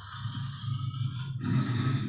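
Fan-made Dimetrodon creature sound effect, mixed from crocodile and lion recordings: a low growl, then a louder roar starting about one and a half seconds in.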